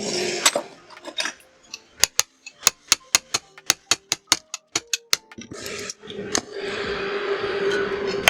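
A rapid series of sharp metal-on-metal clicks and taps, about three or four a second, from parts of an angle grinder being worked on. About two-thirds of the way in, a steadier rushing noise with a low hum takes over.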